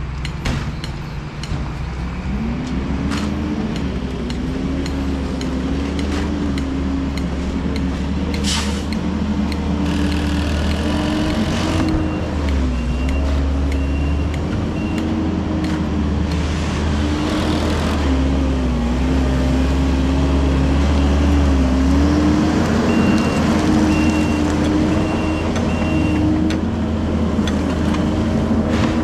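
A heavy vehicle's engine runs under load, its speed rising and falling, with a deep rumble. A reverse warning beeper sounds in two spells, about a third of the way in and again near the end.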